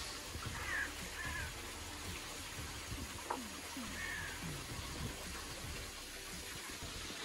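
A few animal calls: short high chirps and several calls that fall steeply in pitch, over a steady background hiss.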